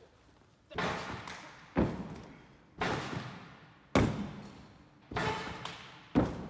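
Gymnast bouncing on a tumble track: six thuds about a second apart, each ringing out in the large, echoing gym hall.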